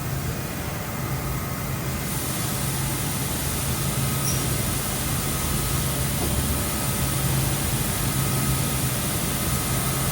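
Parpas Diamond Linear 5-axis gantry machining center running with a steady low hum and a faint constant high tone.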